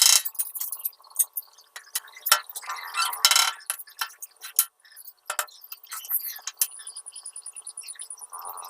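Irregular sharp clinks and taps of hard objects, such as tools on a frame or masonry, over a faint steady hum. Near the end a thin, high, rapid ticking tone comes in.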